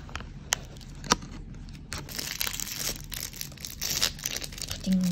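Plastic snack packaging crinkling and tearing as it is handled and opened, with two sharp clicks about half a second and a second in.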